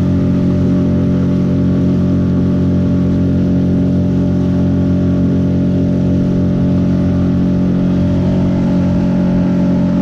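A small motor driving a kayak runs steadily at speed, a constant engine drone with no change in pitch or level.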